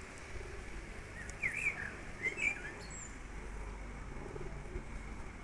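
Songbird chirping outdoors: two quick bursts of short, arching notes, one about a second and a half in and another a second later, over a steady low background rumble.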